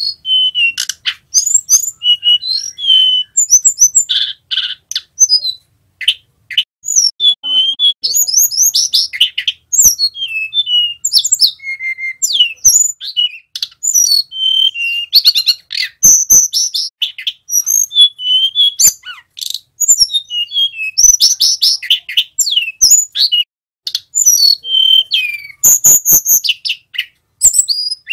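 Male hill blue flycatcher (tledekan gunung) singing a continuous rolling ('ngerol') song of quick, high whistled notes, slurs and trills with hardly a pause. A few sharp clicks are mixed in.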